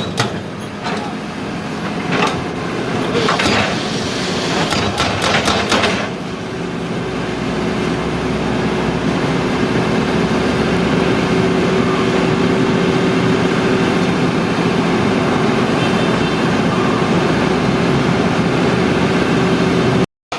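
Excavator-mounted hydraulic breaker working on bridge concrete: clusters of sharp clattering knocks for the first few seconds, then a steady heavy engine drone with a held whine takes over about six seconds in.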